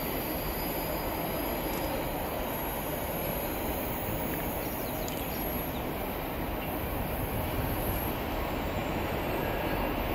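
Freightliner Class 66 diesel locomotive hauling an intermodal container train as it approaches, a steady rumble of engine and wheels that grows slightly louder.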